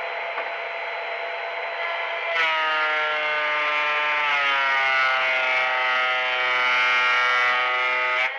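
Benchtop thickness planer running free, then about two seconds in it gets louder and its motor pitch drops as a beech board is fed through the cutterhead. It stays loaded while planing, and near the end the board clears and the planer returns to its free-running pitch.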